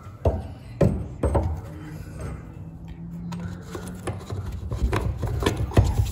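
Metal clunks and scraping as a cut-off driveshaft slip yoke is pushed by hand into the transmission tailshaft, used as a makeshift plug. There are a few sharp knocks in the first second or so, then a quicker run of knocks and rubbing near the end.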